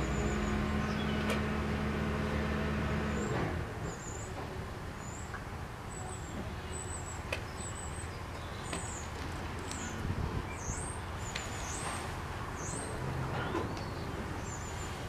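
A small bird chirping repeatedly in short high notes, some of them quick rising or falling sweeps, over a low steady hum that stops about three and a half seconds in.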